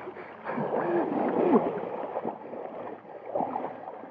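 Shallow river water sloshing and splashing at the bank while a small hooked rainbow trout is landed through the shallows. It is loudest from about half a second to two and a half seconds in, then eases off.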